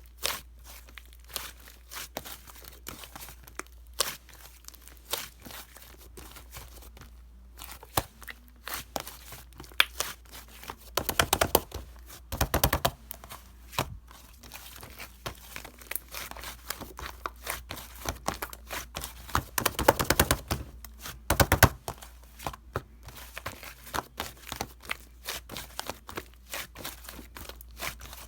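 Something crinkly being handled close to the microphone: crinkling and tearing with many small sharp clicks and taps. There are louder stretches of crackling about eleven and twenty seconds in.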